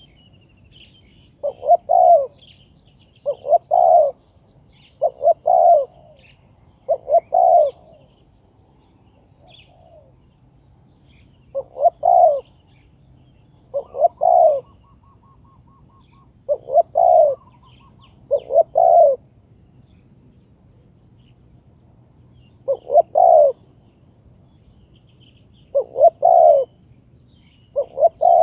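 Spotted dove cooing again and again, short loud phrases about every two seconds with a few longer pauses: the call of a decoy dove luring wild doves. Faint chirps of small birds sound behind it.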